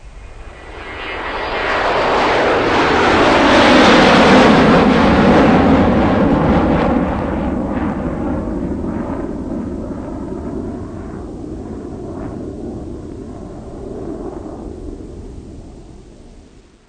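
A loud engine-driven machine passing close by: a roar that swells to a peak about four seconds in, drops in pitch as it goes past, then slowly fades away.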